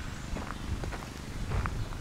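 Footsteps of a person walking at a steady pace, several steps in two seconds, over a low rumble.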